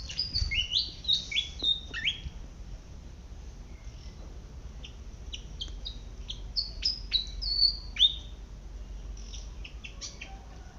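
Malaysian pied fantail singing: quick runs of short, high, squeaky whistled notes, each gliding up or down. One run comes at the start and another about two-thirds through, with scattered single chirps between.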